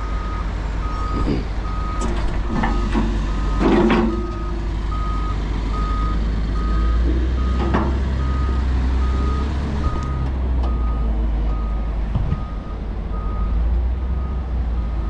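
Backup alarm of a reversing machine beeping steadily at one pitch, a little more than once a second, over the low rumble of a diesel engine running. A clank comes about four seconds in, with a couple of lighter knocks.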